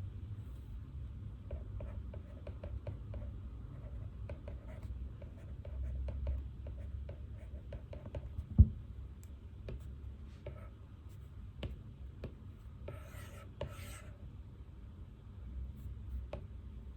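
Pen writing on paper in many short scratching strokes over a low steady room rumble. A single sharp knock sounds about halfway through, and a brief rustle comes near the end.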